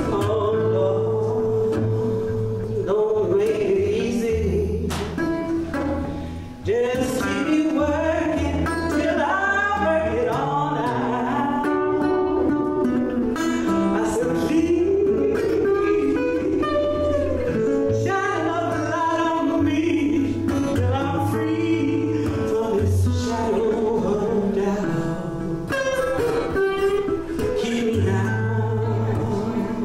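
Live blues song: slide guitar on a metal-bodied resonator guitar, with a woman singing over it.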